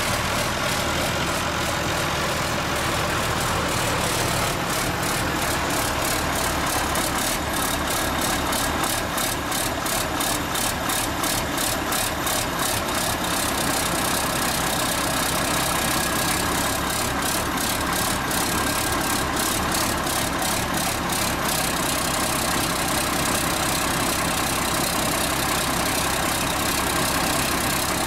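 Ford TW-25 tractor's turbocharged six-cylinder diesel running steadily with no exhaust fitted, so the engine sounds loud and raw; the turbo is worn and due for reconditioning.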